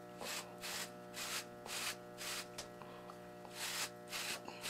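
Medium-hard Torino Pro palm wave brush swished through short wavy hair in repeated strokes, a bit under two a second, over a steady low electrical hum.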